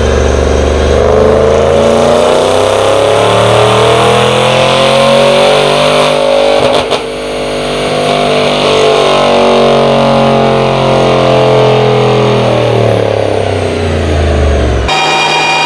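Cadillac Escalade's V8 exhaust during a chassis-dyno pull, with the dyno rollers' noise mixed in. Engine speed climbs for about seven seconds, there is a short break, and then the engine winds slowly back down. It cuts off abruptly near the end.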